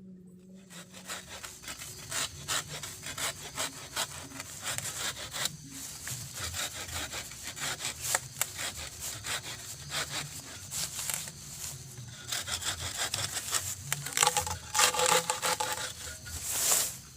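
Hand saw cutting through wood in steady back-and-forth strokes, louder over the last few seconds, stopping abruptly just before the end.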